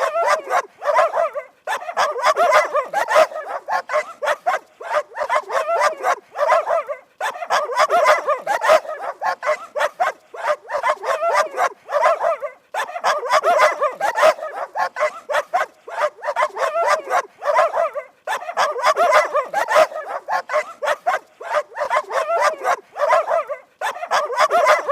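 Dog barking rapidly, several barks a second, in runs of a few seconds broken by short pauses.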